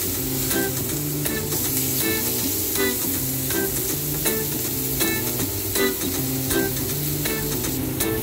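Whole garlic, button mushrooms and lemon slices sizzling in a hot nonstick frying pan. Background music with a steady beat plays under the sizzle.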